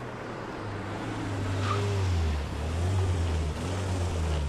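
A car pulling up, a low engine hum with tyre and road noise that grows louder over the first two seconds.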